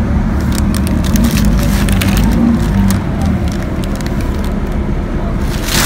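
City bus engine and road noise rumbling steadily inside the bus, with tissue paper and a cardboard shoebox crinkling and rustling as they are handled; the crackling is dense for the first few seconds, then thins out, with one sharp crinkle near the end.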